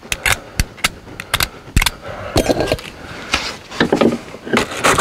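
Knife blade scraping green corrosion off a battery cable end, with sharp clicks and taps of metal, then several short scrapes in the second half.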